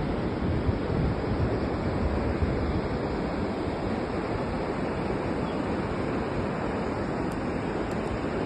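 Surf washing onto a sandy beach in a steady rush, with wind rumbling on the microphone.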